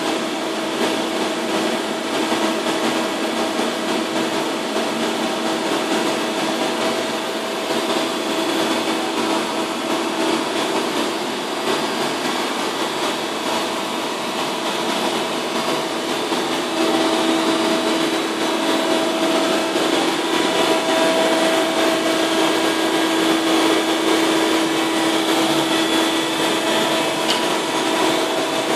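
High-frequency (RF) welding machine for conveyor belts running, a steady mechanical hum with a pitched whine, growing a little louder just over halfway through.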